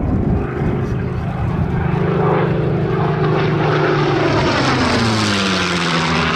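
Supermarine Spitfire's V12 piston engine and propeller in a low fly-past: a steady drone whose pitch drops about five seconds in as the plane goes by.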